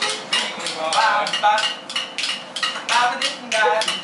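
Metal kitchen utensils (ladles, spatulas, tongs) clanging and scraping against steel woks and pots in a quick, roughly even beat, about four strikes a second, with voices calling out over it.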